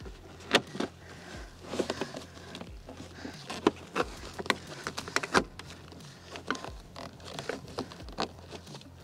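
Irregular clicks, knocks and scuffs of a stiff molded floor liner and plastic interior trim panel being pressed and worked into place by gloved hands.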